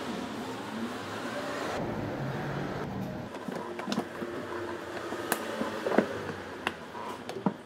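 Steady rubbing, then a series of sharp knocks and clicks from hands working a rubber floor mat and a cleaning tool in a car's footwell.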